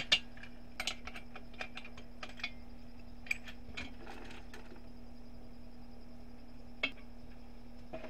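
Light metallic clicks and taps as the star-knob swing bolts on a pyrolysis reactor's stainless steel end door are undone and the door is swung open. The clicks stop about four seconds in, leaving a steady faint hum, with one more click near the end.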